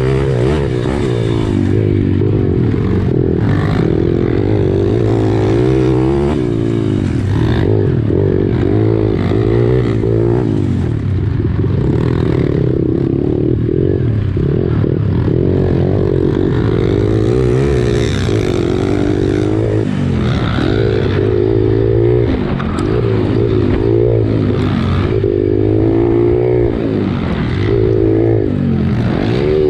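Pit bike engine running hard under the rider, its pitch rising and falling over and over as the throttle is opened and closed along the trail.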